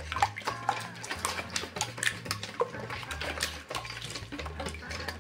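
A wire whisk beating eggs into a thin liquid mixture in a stainless steel bowl. The wires click and scrape rapidly and unevenly against the metal, with some sloshing of liquid.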